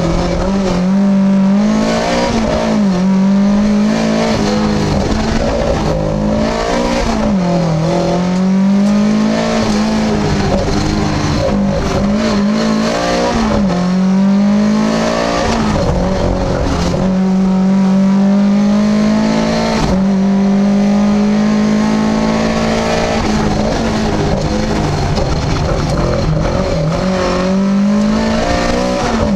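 Lada VFTS rally car's four-cylinder engine heard from inside the cabin, running hard at high revs under full racing load. Its pitch drops and climbs back again three times in the first half, then holds fairly steady at high revs.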